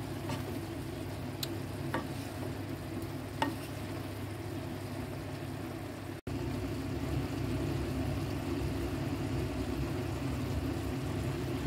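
Vegetables and ground pork sizzling steadily in a nonstick pan while being stirred with a wooden spatula, with a few light spatula taps in the first few seconds. The sound breaks off briefly about six seconds in and resumes slightly louder.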